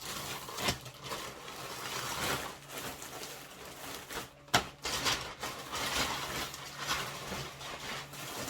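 Plastic clothing packaging rustling and crinkling as it is handled and opened, with a few sharp snaps, the loudest about halfway through.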